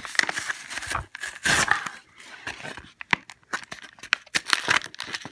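A Yu-Gi-Oh! booster pack's wrapper being torn open and crinkled by hand, in irregular rips and crackles.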